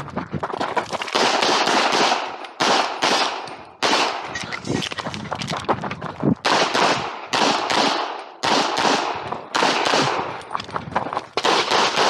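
Semi-automatic pistol fired in rapid strings of shots during a timed practical-shooting stage. Each shot is a sharp crack with a short ring-off, and there are a few brief pauses between strings.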